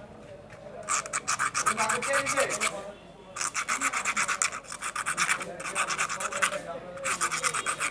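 Sandpaper rubbed in quick back-and-forth strokes on a torch's small metal battery terminal, in three bursts with short pauses between them. The rubbing scours off dirt and rust that keep the terminal from making ground, so the battery will not charge.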